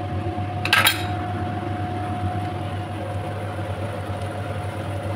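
A single sharp clink of kitchenware, metal or glass, about a second in, over a steady low hum.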